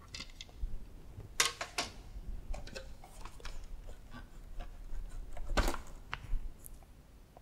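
Irregular clicks and knocks of plastic parts being handled: the sole plate and hose being taken off the underside of an upright vacuum cleaner, with the machine switched off.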